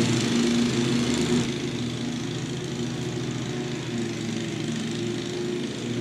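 Small lawn mower engine running at a steady pitch, a little quieter after about a second and a half.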